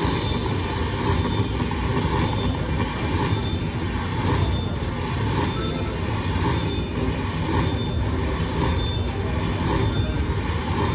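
Aristocrat Bao Zhu Zhao Fu Red Festival slot machine tallying its Ultra Spins bonus into the win meter: a bright hit repeats about once a second over a steady rushing din.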